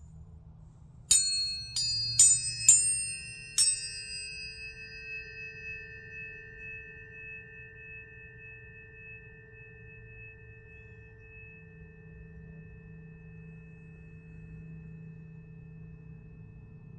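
Planetary tuning forks struck about five times in quick succession, starting about a second in. Each strike gives a sharp metallic tick, and several pure tones, one low and a few high, then ring on together and slowly fade.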